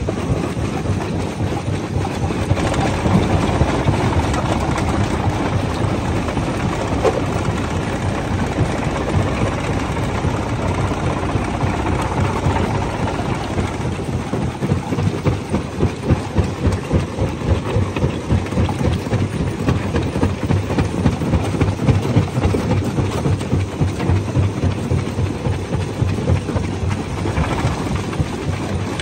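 Jaw crusher breaking rocks: a steady heavy mechanical rumble under a dense clatter of stone knocking and cracking. The loudness pulses more strongly in the second half.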